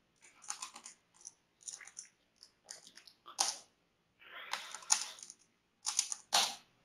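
Typing on a computer keyboard: irregular key clicks, with a few louder keystrokes near the middle and end.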